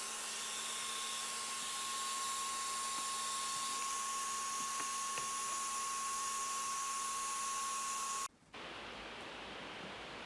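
Vacuum cleaner motor running steadily with a high whine, drawing air through a face mask dusted with corn starch, then switched off about eight seconds in; a quieter hiss follows.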